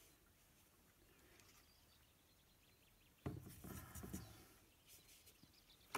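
Near silence, then about three seconds in a sudden knock followed by a scratchy scrubbing and tapping as a watercolour brush is worked in the wells of a paint box, mixing the paint, with a few smaller taps after it.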